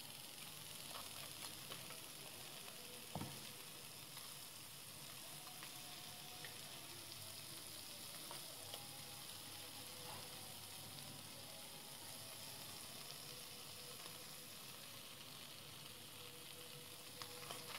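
Hot oil sizzling faintly in the wells of an unniyappam pan as jackfruit unniyappam fry, with a few light clicks, the sharpest about three seconds in.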